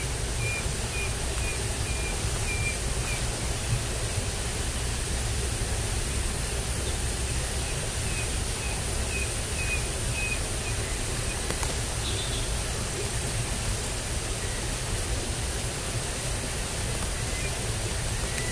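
Steady outdoor noise with a strong low rumble. A short high chirp repeats about twice a second at the start and again around the middle.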